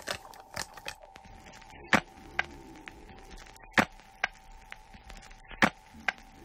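Sharp clicks or knocks in pairs, about two seconds apart, over a faint steady hum.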